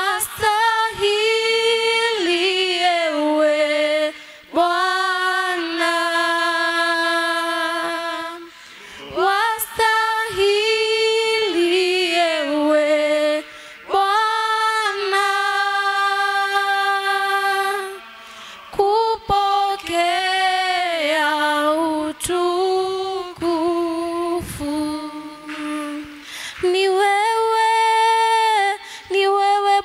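A woman singing a worship song solo and unaccompanied, in long held notes with short breaks between phrases.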